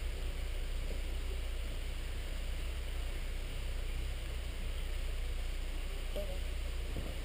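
Steady low rumble with a faint hiss over it, with a couple of faint short sounds near the end.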